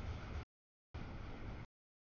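Double-stack container freight train rolling past: a low rumble with a steady noisy wash that cuts off abruptly to dead silence and back twice, in pieces under a second long.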